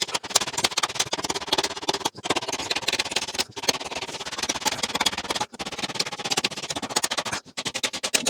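Knife blade chopping into a treated pine 2x4, sped up so the strikes run together into a rapid clatter of sharp wooden knocks, with a few brief breaks.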